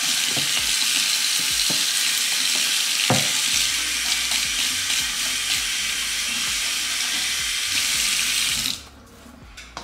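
Kitchen tap running at full flow into the sink while hands are washed under it, with a single knock about three seconds in; the water is shut off about a second before the end.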